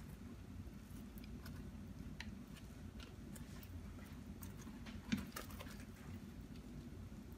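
Quiet, soft bubbling of soup broth boiling in an Instant Pot's inner pot, with scattered light clicks and a single knock about five seconds in.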